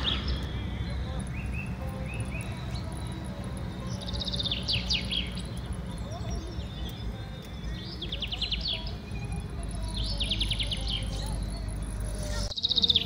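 A bird sings in short, rapid trills of quick descending chirps, repeating every couple of seconds. Under it runs a steady low rumble of car road noise.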